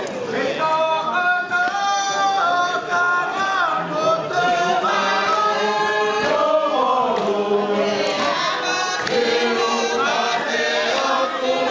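A group of voices singing together in long held notes that step from pitch to pitch.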